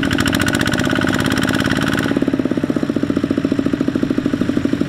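Walking tractor's single-cylinder diesel engine chugging in rapid, even beats while it hauls a loaded trailer. A sharper clatter rides on it for about the first two seconds, then drops away and leaves the plainer chugging.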